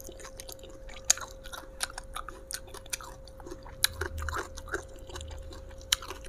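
A person chewing a mouthful of raw green eggplant dipped in sambal, with irregular crunching clicks from the bites.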